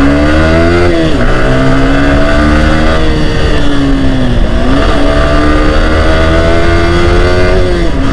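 Yamaha R15 V4's 155 cc single-cylinder engine under way, its pitch rising with the throttle, dropping sharply about a second in, sagging and recovering in the middle, and dropping again near the end. A steady rush of wind runs under it.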